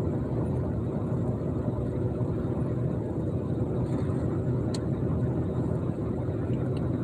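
Steady road and engine noise heard inside a vehicle's cab while cruising at road speed, with a faint click about five seconds in.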